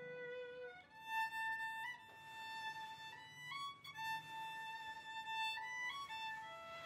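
Solo violin playing a slow melody of long held notes with a few steps in pitch.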